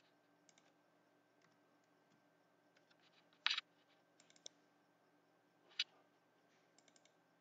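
Near silence broken by a few sharp computer mouse clicks, the clearest about three and a half seconds in and again near six seconds in, with a few fainter ticks between.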